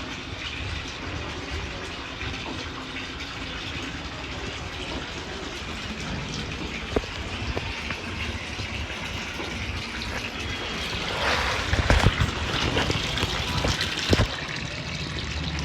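Water spraying and splashing over a window air conditioner as it is washed clean, a steady hiss that grows louder for a few seconds past the middle, with a few sharp knocks.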